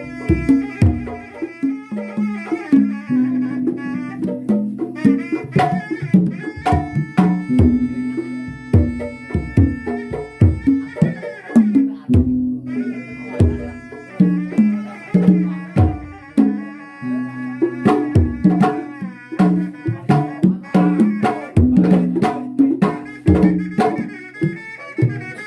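Sundanese pencak silat accompaniment music: hand drums playing a quick, uneven pattern of strokes over steady low tones, with a wavering high melody above.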